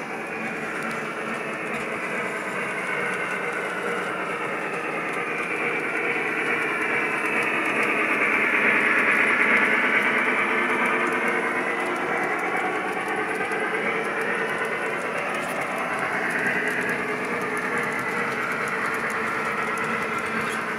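O gauge model train running on three-rail metal track, a steady clatter of wheels and motor that grows louder as the train passes close by, peaks about halfway through, then eases off.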